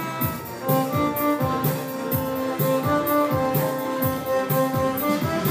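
Violin playing a melody of held notes over accompaniment with a steady beat of about two hits a second.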